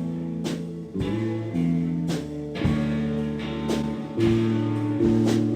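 Guitar playing strummed chords, a fresh strum every half second to a second, with the chord changing several times; the ringing chords fill the gap between sung lines.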